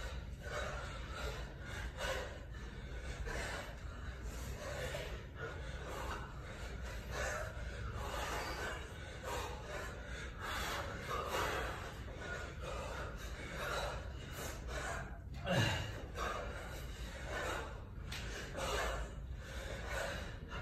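A kettlebell lifter's hard breathing under effort: sharp exhales and quick inhales, roughly one per second, in time with his reps. About fifteen seconds in comes a louder, short grunt that falls in pitch.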